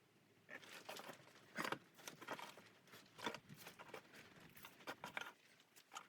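Irregular soft crunches and rustles, a few a second, beginning about half a second in.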